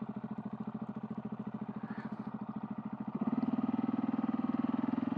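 Husqvarna 701 Supermoto's single-cylinder engine running at low road speed with an even, pulsing exhaust beat, which grows louder about three seconds in.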